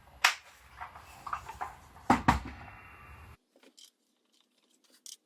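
Sharp clicks and knocks of a dock adapter being fitted and locked under a Kreg 720PRO pocket hole jig, the loudest a pair about two seconds in, then only faint ticks.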